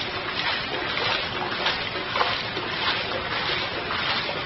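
Footsteps splashing and sloshing through shallow floodwater, a splash about every half second to second, over a steady hiss.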